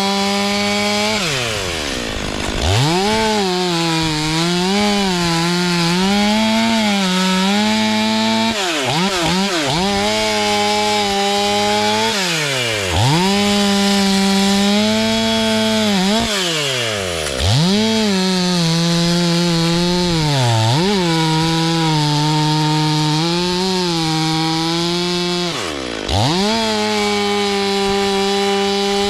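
STIHL MS 500i two-stroke chainsaw running at high revs while cutting wood, its pitch wavering under load. About six times the revs drop sharply and climb straight back up as the throttle is let off and squeezed again.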